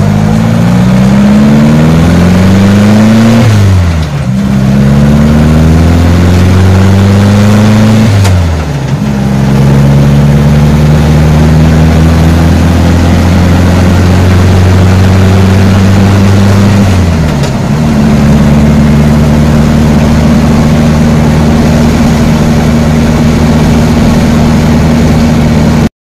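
VW Baja Bug's air-cooled flat-four engine heard from inside the cabin, accelerating through the gears. The engine note climbs, drops at each of three gear changes, then holds steady at cruising speed.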